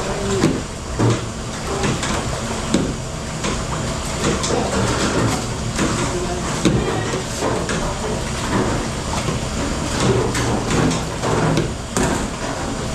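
Dishes and utensils clattering in a commercial dish room: many short, irregular knocks over a steady background noise.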